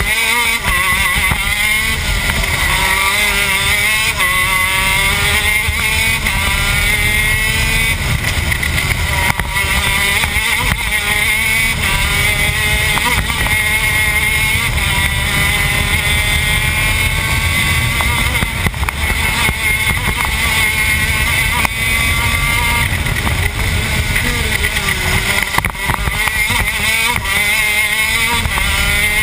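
TM K9c 125cc two-stroke shifter kart engine at full race pace, heard onboard: its pitch climbs through each gear and drops back again and again as the driver shifts and brakes for corners.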